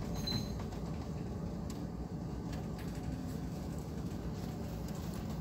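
Handysize bulk carrier underway at sea: a steady low rumble with a few faint clicks scattered through it.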